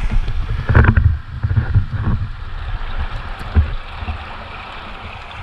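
Shallow creek water running over rocks, with several low thumps and sloshes in the first couple of seconds and one more a little later, from movement in the water.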